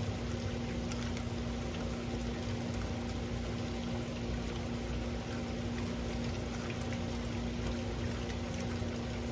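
Steady rainfall, an even wash of noise, with a constant low hum running underneath.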